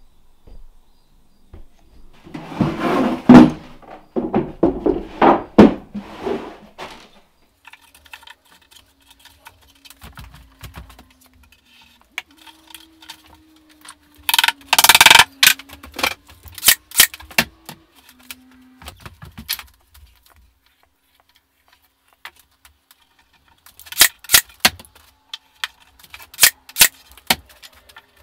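Wooden crate and pine boards being handled on a workbench: two spells of scraping and sliding, then a series of sharp knocks and taps as the boards are set in place.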